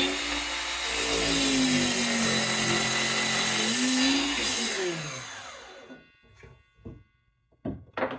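DeWalt DCS361B 7¼-inch 20-volt cordless sliding miter saw spinning up and cutting through a board for about four seconds, then its blade winding down with a falling whine once the trigger is released. A few light knocks follow near the end.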